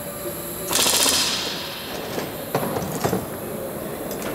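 Pneumatic rivet gun driving a rivet into a metal aircraft plate: one rapid hammering burst of under a second, about a second in. A few light clicks and knocks of tools being handled follow.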